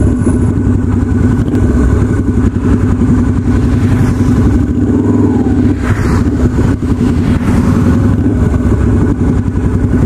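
Yamaha Virago 250 chopper's V-twin engine running steadily while riding.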